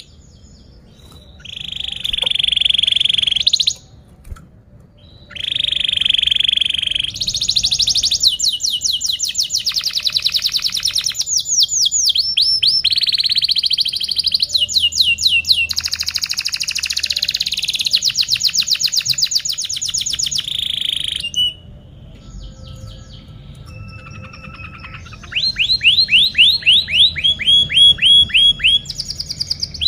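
A domestic canary singing a long song of fast trills: phrases of rapidly repeated notes and buzzy rolls, each phrase at its own pitch. The song breaks off briefly about four seconds in, and again for a few seconds past the middle, before the trills resume.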